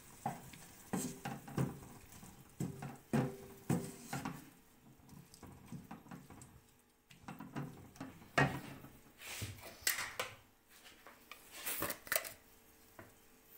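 Wooden spatula scraping and knocking against a non-stick wok as chicken and chopped vegetables are stirred and tossed: irregular strokes, a quieter lull midway, then a few louder scrapes in the second half.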